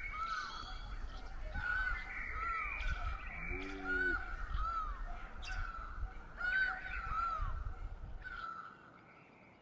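Birds calling outdoors: a long series of short, arched calls repeating every half second to a second, dying away near the end.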